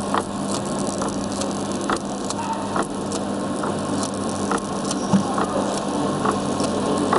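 Flexographic sticker printing press running steadily: a continuous mechanical hum with a low steady tone and light clicks one or two times a second.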